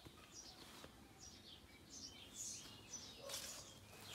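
Faint songbirds chirping: a scatter of short, quick, falling high notes over quiet background noise.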